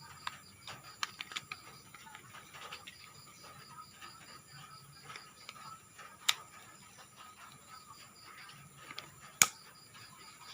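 Small plastic toy parts being handled and fitted together: scattered light clicks and taps, with two sharper clicks about six and nine seconds in.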